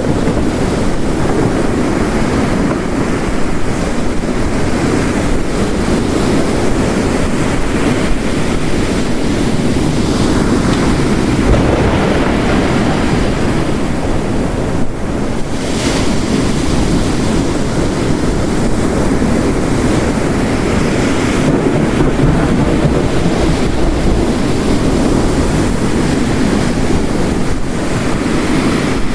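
Ocean waves crashing on a rocky coast mixed with heavy rain, a dense steady rush with the surf swelling now and then.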